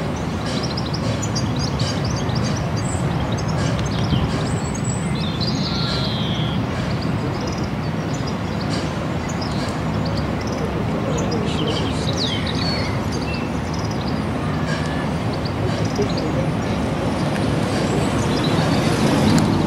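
LNER A4 Pacific No. 4464 Bittern, a three-cylinder steam locomotive, working a train under steam as a steady rumble that grows louder near the end as it approaches. Songbirds chirp over it throughout.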